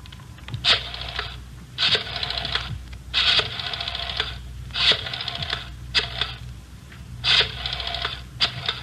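Rotary telephone dial being turned and released about seven times, each digit a sharp click followed by a fast whirring ratchet as the dial spins back.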